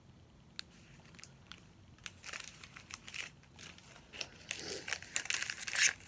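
Plastic packaging crinkling and tearing as a small miniature item is unwrapped by hand: a few faint clicks at first, then crackly handling that grows busier and louder toward the end.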